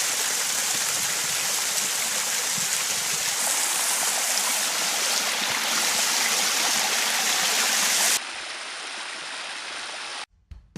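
Swimming-pool waterfall splashing steadily, a modest flow of about 60 to 70 gallons a minute. About eight seconds in it drops suddenly to a quieter, duller hiss, which cuts off near the end.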